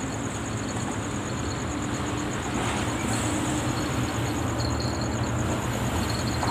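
Steady low rumble of road traffic on a bridge, swelling slightly partway through, under a fast, high, pulsing insect trill.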